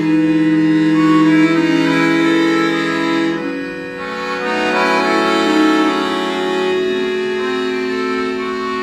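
Chromatic free-bass accordion played solo in a slow passage of long held chords. The low bass notes drop out about three and a half seconds in, leaving the higher voices to carry on.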